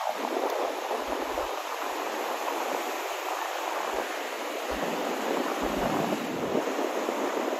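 Steady rushing of sea surf and wind on the microphone, with a few brief low thumps.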